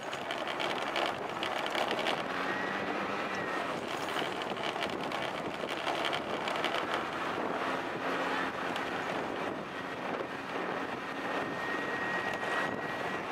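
Yamaha Axis 90 scooter's small two-stroke single running while being ridden, with wind buffeting the microphone. A thin high whine comes in around two to four seconds in and again near the end.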